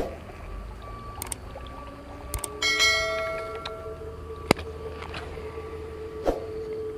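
Subscribe-button animation sound effects: a couple of sharp clicks, then a bright bell chime about two and a half seconds in that rings out for over a second. More single clicks follow.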